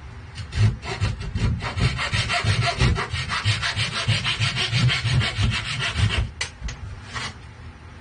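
Hand rasp scraping the edge of the hand-hole cutout in a poplar talharpa body: fast, even back-and-forth strokes, about five a second, that stop about six seconds in, with a few last strokes just after.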